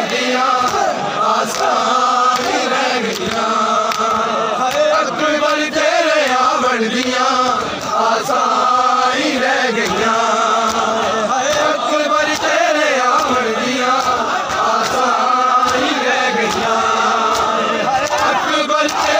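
Men's voices chanting a Punjabi noha, a Shia lament, with sharp slaps of hands beating on bare chests (matam) recurring through the chant.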